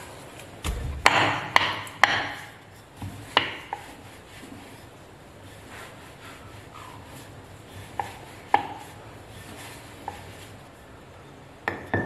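Wooden rolling pin rolling chapati dough on a round wooden board, with a rubbing sound under scattered sharp wooden knocks. The knocks are bunched in the first couple of seconds, with a few more later.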